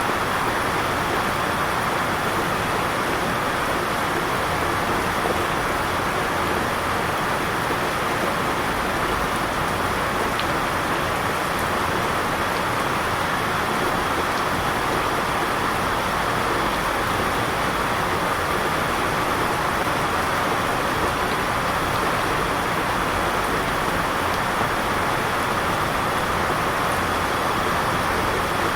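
Heavy rain falling steadily: a dense, even hiss that does not let up or change.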